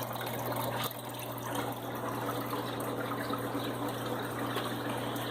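Fresh water pouring steadily into an aquarium tank during a water change, with a low steady hum underneath.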